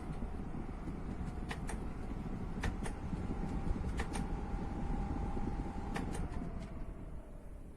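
Honeywell QuietSet tower fan running, a steady rush of air with a motor hum, broken by several sharp clicks. About six seconds in, the hum drops in pitch and the sound fades as the fan slows down.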